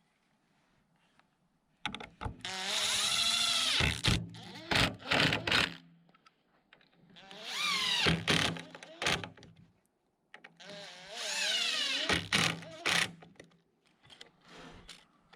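Cordless impact driver driving screws into wood, three runs of a few seconds each, the motor whine rising in pitch as each run starts and ending in short clicks.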